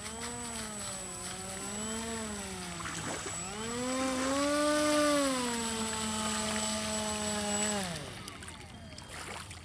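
Motor and propeller of a radio-controlled Icon A5 model seaplane buzzing with the throttle. The pitch dips about three seconds in, climbs and holds high, then winds down and cuts off about eight seconds in.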